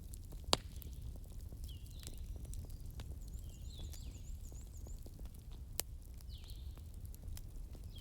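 Crackling fire: a steady low rumble with scattered sharp pops, two of them standing out, one just after the start and one about two-thirds through. Faint high chirping calls repeat in the background.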